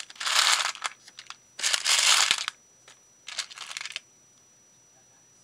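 Rustling, crinkling handling noise from a hand working among plastic bead boxes, in three bursts within the first four seconds.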